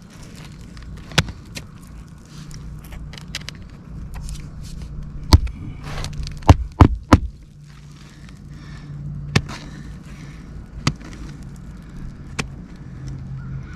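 Roofing nails being driven back into a shingle: sharp, separate strikes at uneven intervals, with a quick run of three near the middle.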